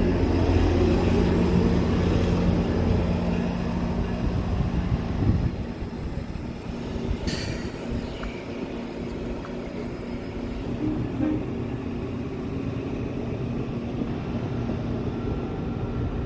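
GO Transit diesel commuter train moving through the station: the locomotive's steady engine drone drops away about five and a half seconds in, leaving the rumble of the rolling bilevel cars, with one sharp click about seven seconds in.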